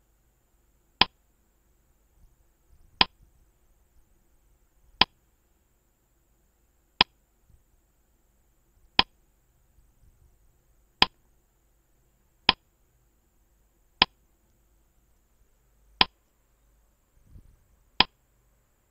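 Clock-tick sound effect of a quiz countdown timer: a single sharp tick about every two seconds, ten in all, while the answer time runs.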